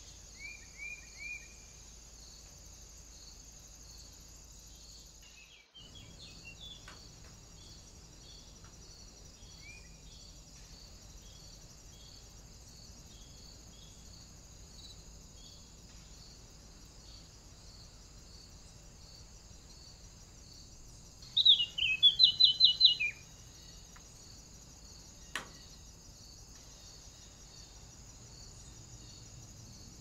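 Steady high chirring of insects with a regular pulse, under bird calls: three quick chirps at the start, and a loud rapid run of sharp notes a little past two-thirds of the way through. A single sharp click follows shortly after.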